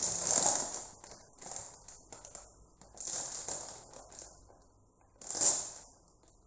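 Plastic rice bag crinkling as it is handled and folded, in several separate bursts, the loudest near the end.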